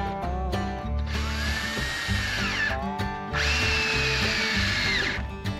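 Cordless drill boring into a wooden block in two runs of about two seconds each, its whine rising as it spins up and dropping as it stops. Background music with a beat plays throughout.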